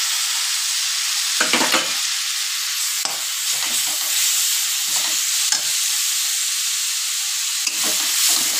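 Ground garlic and green chilli paste sizzling in hot oil in a metal kadhai, a steady frying hiss, with the spatula scraping against the pan several times as it is stirred.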